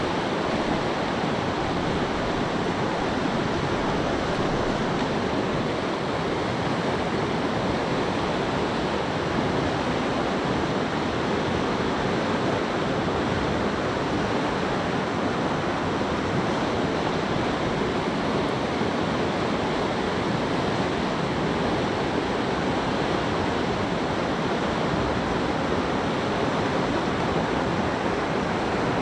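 Flowing river water rushing steadily, a constant even hiss with no breaks or changes.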